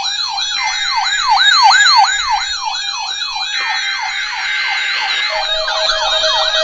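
Weather alert radios sounding their siren alarms for a NOAA Weather Radio weekly test: a loud, fast wail that sweeps up and down about three times a second over a steady tone, with a second, quicker-warbling alarm joining about five seconds in.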